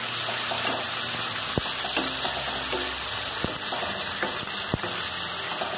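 Chopped tomatoes sizzling in hot oil in a non-stick wok while a wooden spatula stirs them, with a few light knocks of the spatula against the pan.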